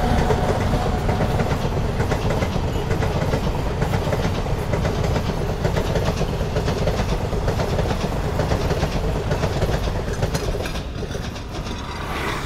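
A train passing close by, its wheels clattering rapidly over the rail joints, the sound fading away near the end.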